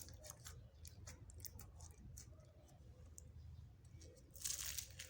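Slime being mixed by hand, giving soft scattered clicks and pops, with a louder squishing crackle near the end.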